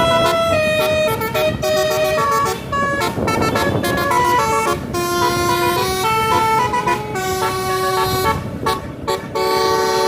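Tour bus's multi-tone "basuri" telolet horn playing a tune of held notes, several sounding together at times, and cutting off suddenly at the end.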